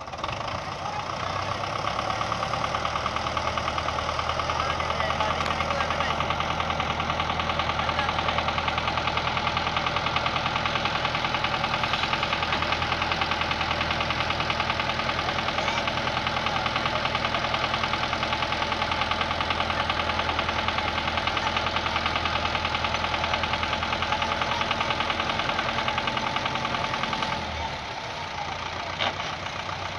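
Belarus 510 tractor's four-cylinder diesel engine running steadily at raised revs, driving the hydraulics that tip the loaded trolley's bed. The engine's level drops for a moment near the end.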